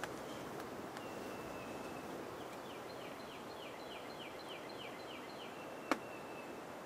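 A songbird singing a run of about ten quick down-slurred high notes, with a thin steady whistle before and after it, over a steady background hiss. A single sharp click sounds near the end.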